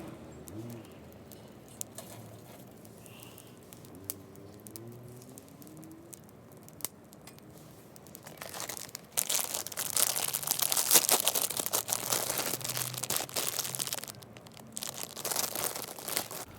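Crinkling and crumpling of wrapping being handled, starting about eight seconds in as a dense run of fine crackles, pausing briefly near the end and then going on.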